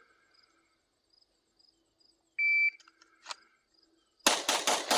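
A short, loud electronic beep about two and a half seconds in, then, a little under two seconds later, a rapid string of 9mm shots from a Gen 5 Glock 19 fitted with a Radian Ramjet compensator, several shots a fraction of a second apart.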